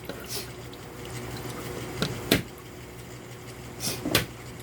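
Fresh ginger being crushed, a few sharp knocks: a pair about two seconds in and another near the end, with a brief hiss just before the last one.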